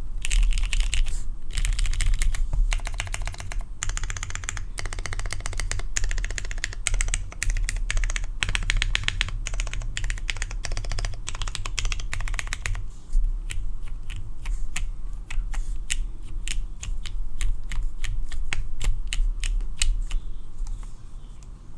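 Typing on a Midway60 mechanical keyboard with lubed, filmed Cherry MX Black Hyperglide linear switches and a half-aluminium plate. Fast runs of keystrokes come in bursts, then from about halfway through it slows to separate, evenly spaced key presses.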